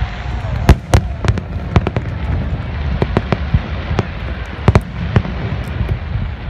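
Aerial firework shells bursting overhead: a quick, irregular run of sharp bangs, the loudest about a second in and again near the five-second mark, over a steady low rumble.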